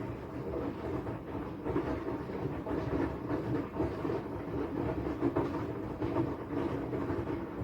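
Front-loading washing machine running, a steady mechanical rumble with irregular light clatter from the turning drum.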